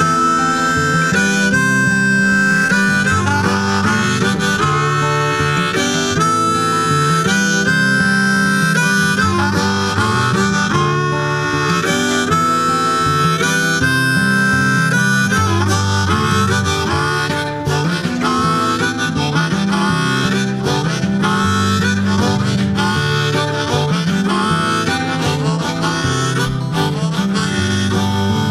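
Background music: an instrumental blues passage led by harmonica over guitar, with no singing.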